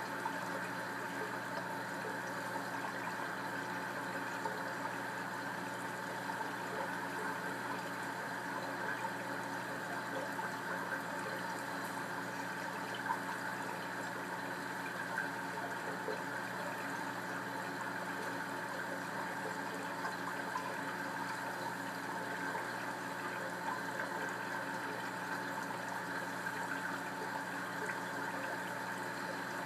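Steady rush of water and pump hum from a reef aquarium's circulation and filtration.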